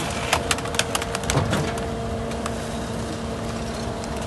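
Garbage truck running with a steady engine hum. A quick run of sharp cracks and snaps comes in the first second and a half.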